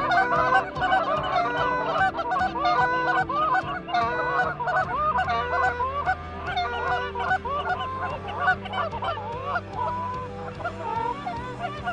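Many Canada geese honking at once, a dense run of overlapping calls that continues throughout.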